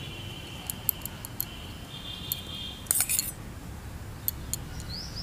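Steel spoon clinking and scraping against a stainless steel bowl and plate as curd is spooned out, a few light clicks with a louder clatter about three seconds in.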